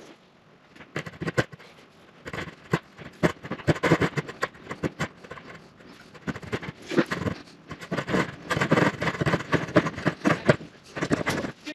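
Coping saw cutting a cope into the end of a piece of wooden trim molding, with quick, irregular rasping strokes starting about a second in.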